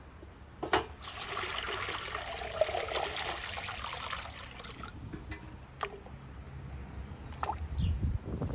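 Water poured from a metal bucket into a large iron cauldron, splashing for about three and a half seconds. A sharp knock comes just before the pour, and a few light knocks follow it.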